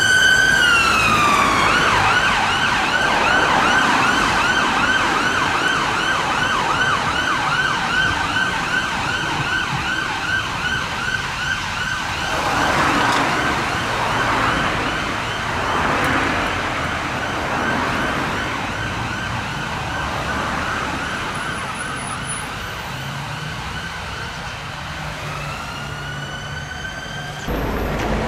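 UK ambulance siren on a Fiat Ducato ambulance responding to an emergency call: a falling wail switches to a fast, repeating yelp that slowly fades as the vehicle moves away. A rising wail starts again near the end, then there is a sudden cut to road traffic noise.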